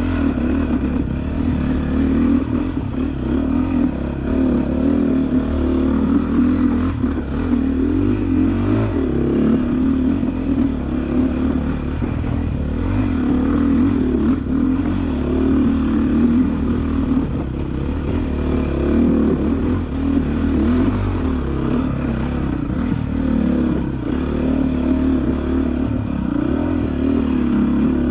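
2013 Honda CRF450R's four-stroke single-cylinder engine running under load on a dirt trail, its revs rising and falling with the throttle, picked up by a helmet-mounted camera.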